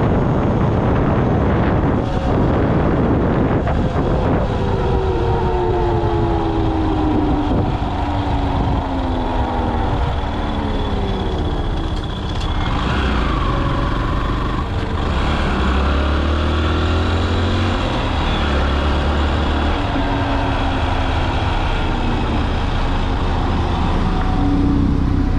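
Motorcycle riding with its engine running under rushing wind noise; as the bike slows down, the engine note falls in pitch over several seconds. A steadier low rumble joins in the second half.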